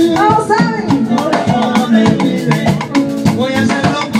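Live band playing a loud, up-tempo salsa groove: a drum kit and hand percussion hit steadily over pitched instruments.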